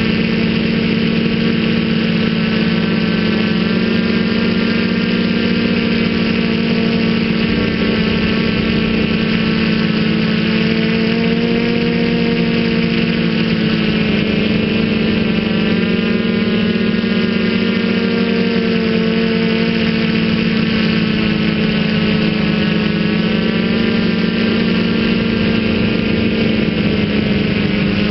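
Feiyu Tech Y6 Scorpion multicopter's six electric motors and propellers in flight, picked up by its onboard camera: a steady droning hum that rises and falls slightly in pitch as the throttle changes.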